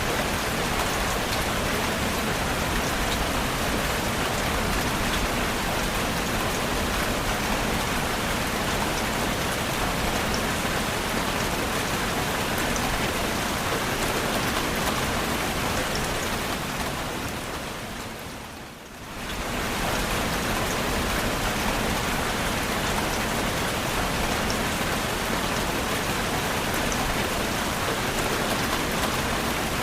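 Steady rain falling on a surface, an even hiss of drops. About two-thirds of the way through it fades down briefly and comes straight back up.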